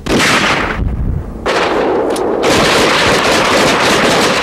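Rapid rifle gunfire, many shots close together, starting suddenly and running on without a break, with a slight lull about a second in.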